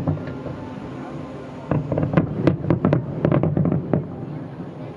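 Distant aerial fireworks bursting. One sharp bang comes right at the start, then from about two seconds in a rapid string of cracks and pops over a low rumble, easing off near the end.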